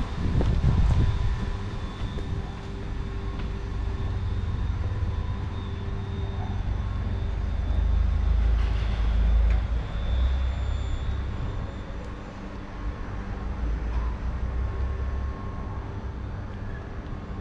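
Outdoor city ambience: a steady low rumble of traffic that swells for a couple of seconds midway, with a faint steady hum of machinery above it.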